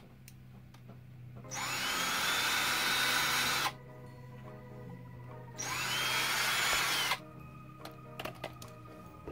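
Cordless drill spun in the air in two bursts of about two seconds and a second and a half, each starting with a rising whine that levels off and then stopping abruptly. A shard of the plastic bin is stuck on the bit.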